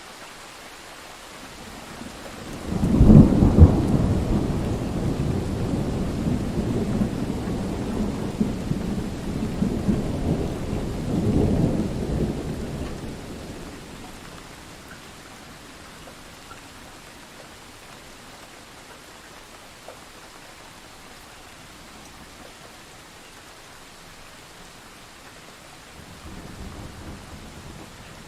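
Thunderstorm: steady rain with a sudden loud thunderclap about three seconds in that rolls on as rumbling thunder for about ten seconds and fades. Another low rumble of thunder begins near the end.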